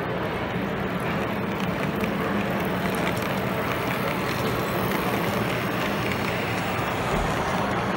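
Model diesel locomotive in Milwaukee Road colours rolling past close by, with a steady low hum of motor, gears and wheels on the track. The model carries no sound system, so this mechanical running noise is all it makes, heard over the steady noise of a busy exhibition hall.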